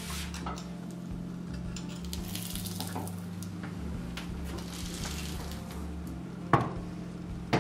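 A door swinging under an overhead electromagnetic door closer, with a steady low hum and hiss throughout. Near the end come two sharp knocks about a second apart.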